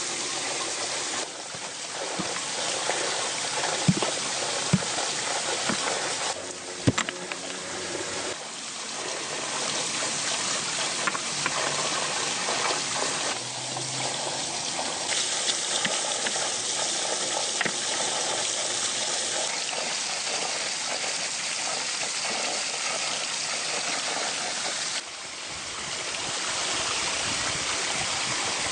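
Flowing stream water running steadily, its sound changing abruptly at several cuts between shots, with a few sharp clicks in the first several seconds.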